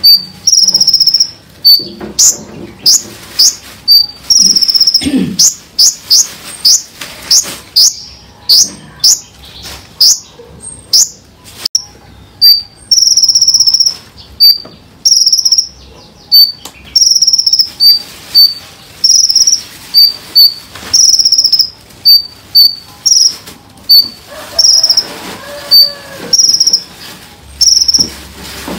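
Small songbirds singing on a training recording for caged birds: loud, high, piercing notes repeated about once a second, with runs of rapid downward-sweeping whistles in the first half.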